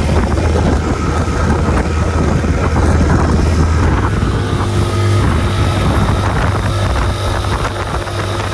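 Mercury outboard motor running steadily at speed, pushing an inflatable boat through choppy water, with water rushing past the hull and wind buffeting the microphone.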